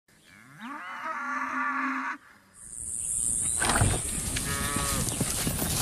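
Cattle lowing: one long moo, its pitch rising and then held, ending about two seconds in. After a short gap, a steady high hiss with scattered clicks and a brief pitched call comes in.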